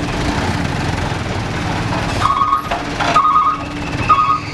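Mitsubishi Canter truck's diesel engine labouring as the laden truck crawls through deep mud. About halfway through, three short high beeps sound roughly a second apart, and the low engine rumble drops away.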